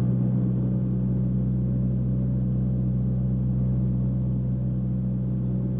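A steady low drone with an even rumble under it, holding at one pitch.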